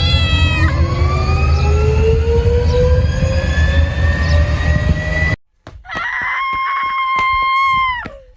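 Airliner jet engines spooling up for takeoff: a deep rumble under a slowly rising whine, opened by a short meow. The engine sound cuts off suddenly about five seconds in. A long, held high-pitched cry follows and drops away near the end.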